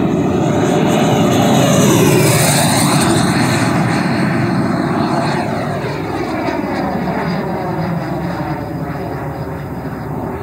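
Electric ducted-fan jet, a JetFAN-120 PRO 120 mm fan on a HET 800-73 motor, at full power in a diving top-speed pass, reaching about 258 km/h. It makes a loud rushing whine that peaks about two seconds in, then slowly fades as the jet draws away.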